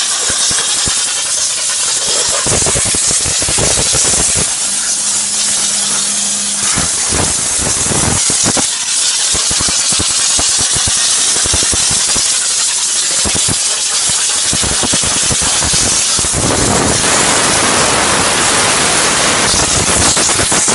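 Mobile steam car washer blowing high-pressure steam: a loud, steady hiss with irregular crackling sputter, getting heavier from about two seconds in and again near the end.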